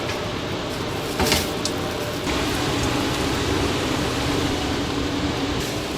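Steady mechanical hum over a noisy background, with one short clatter a little over a second in.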